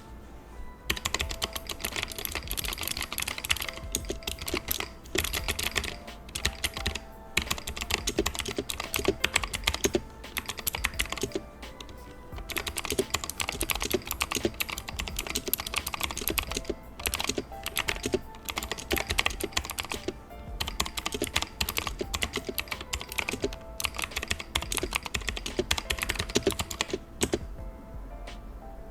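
Typing on a Drop Shift full-size mechanical keyboard fitted with Glorious Nebula keycaps. It is a rapid run of keystroke clacks in bursts, with brief pauses about a second in, around twelve seconds in and near the end.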